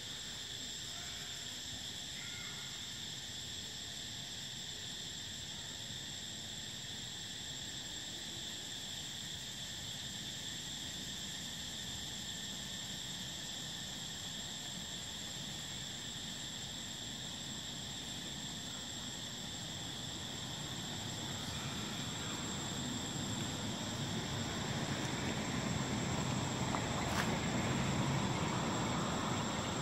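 Steady, high-pitched drone of an insect chorus, with a second thinner tone higher up. In the last third a rushing noise builds up underneath, and there is a single brief click near the end.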